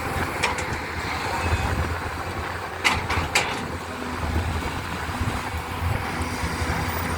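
Heavy diesel earthmoving machinery running with a steady low rumble, and two sharp knocks about half a second apart roughly three seconds in.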